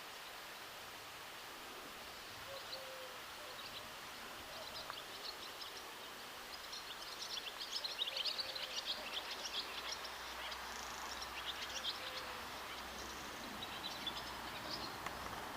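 Small birds chirping and twittering in quick high bursts over faint steady background noise, busiest about halfway through.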